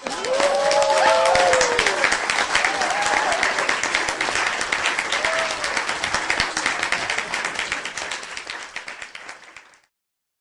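Crowd applauding and cheering, with dense clapping and a few whoops and shouts rising and falling in pitch during the first few seconds. It starts suddenly and fades out near the end.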